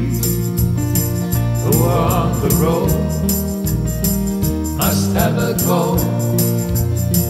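A man singing a two-part harmony, overdubbed, over strummed acoustic guitar and a hollow-body archtop guitar. The vocal phrases come in about two seconds in and again near five seconds, over a steady strum.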